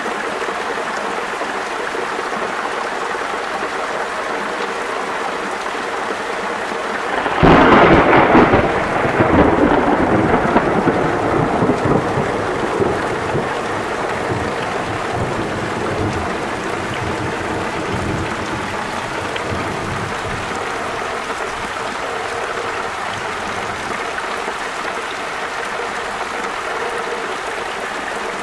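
Steady rain falling through a thunderstorm. About seven seconds in, a loud clap of thunder breaks out, and its rumble dies away over the next several seconds.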